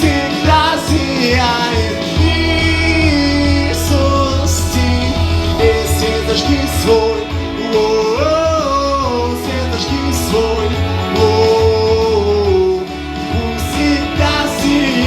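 Song music: a melody line over guitar, steady bass and a regular beat.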